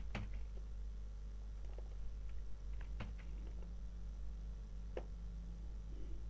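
A few faint, sharp computer mouse and keyboard clicks, the clearest about three and five seconds in, over a low steady hum.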